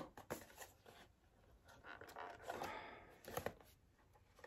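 Faint rustling and tearing of packaging, with a few light clicks.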